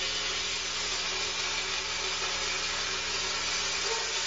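Strips of raw bacon frying in a hot pan, a steady sizzle.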